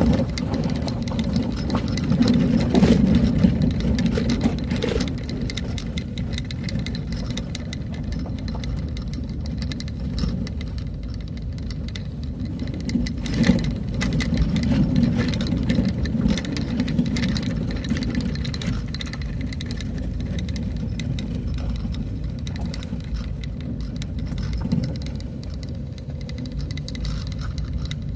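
Vehicle driving along a road: steady engine and road rumble, with rattling and occasional knocks, a sharper one about halfway through.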